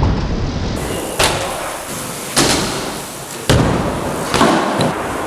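BMX bike wheels landing and banging on wooden skatepark ramps, four heavy thuds about a second apart, each echoing briefly in a large hall.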